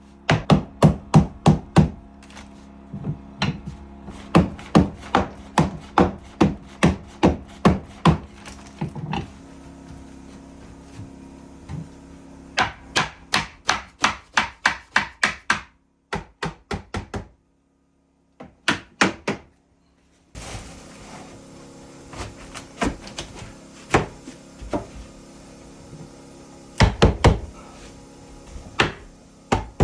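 Hammer blows on wood, struck in quick runs of a handful of blows at a time with short pauses between. The sound cuts out completely twice near the middle, then the blows come more sparsely.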